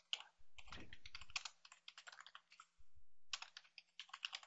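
Faint typing on a computer keyboard: two quick runs of key clicks with a short pause between them.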